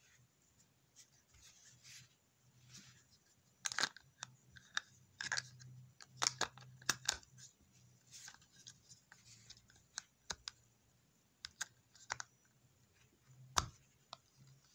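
Trauma shears and their belt holster being handled: scattered light clicks and rustles, with a few sharper clicks among them.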